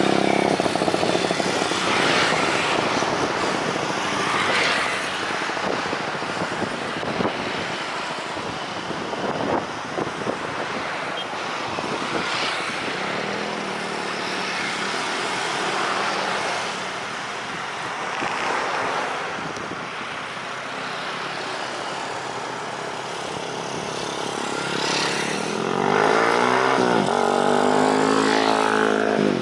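Continuous rushing noise of road traffic and aircraft, swelling several times as vehicles pass. Near the end an engine drone comes in close, its pitch bending up and down as it passes.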